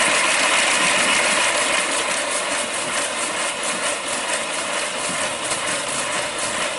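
5-inch gauge live steam BR Standard Class 4 tank locomotive running on a rolling road with its cylinder drain cocks open: a steady loud hiss of steam and condensate blowing out of the cylinders. A fast, regular beat of exhaust chuffs comes through from about two seconds in as the cylinders warm up.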